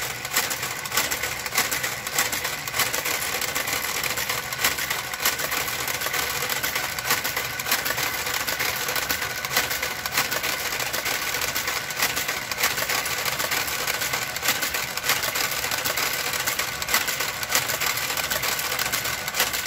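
Brother KG-93E garter carriage running along a knitting machine's needle bed: a steady motor whir with frequent irregular clicks from the needles.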